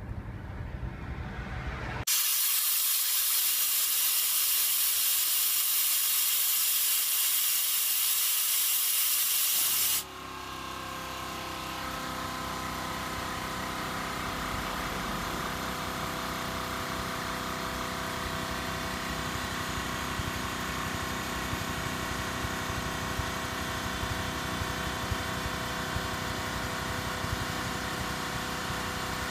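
Makita AC4000 air compressor: a loud, steady hiss of compressed air being let out for about eight seconds, which cuts off abruptly. The compressor's motor and pump then start and run steadily, refilling the tank.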